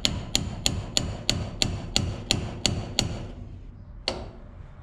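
Hammer blows on steel in the sieve-hanger mechanism of a Bizon Rekord combine: about ten quick, evenly spaced ringing metallic strikes, roughly three a second, then a pause and one more strike near the end.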